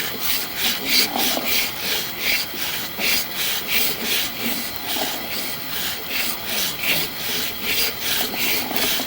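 Push rod of a rigid sewer push camera being fed into the sewer line, rubbing and scraping in short, regular strokes, several a second.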